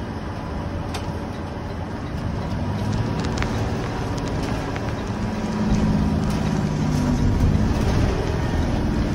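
Cabin sound of a 2020 Thomas C2 school bus driving, its Cummins ISB 6.7-litre diesel running with road rumble, growing louder about halfway through. Scattered crackling clicks from an oversensitive microphone.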